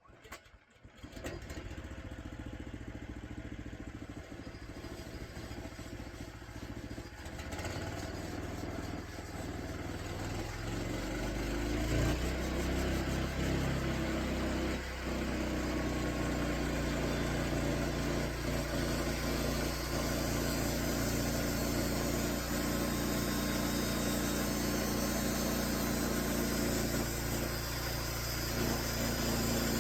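Band sawmill's engine starting, then throttling up over about ten seconds as its pitch rises, and running steadily at speed to drive the blade.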